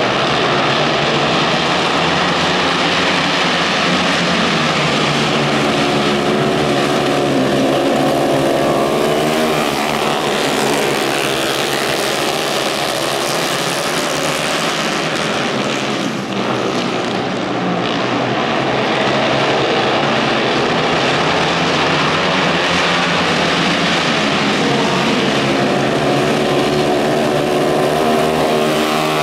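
Flat-track racing motorcycles' engines running hard, the pitch rising and falling as the bikes accelerate and back off for the turns.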